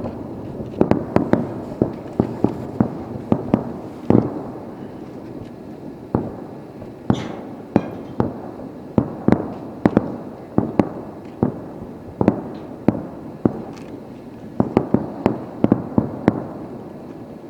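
Aerial firework shells bursting in quick, irregular succession, often several sharp bangs a second, each followed by a short echo, in a fireworks finale barrage.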